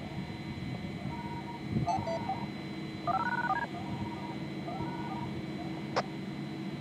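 Several short runs of quick dual-pitch beeps, DTMF-style signalling tones of the kind used to control the siren system, over a steady hiss. A sharp click sounds about six seconds in.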